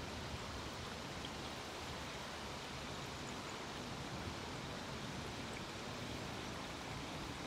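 Steady outdoor background noise: an even hiss with a low rumble from breeze on the microphone.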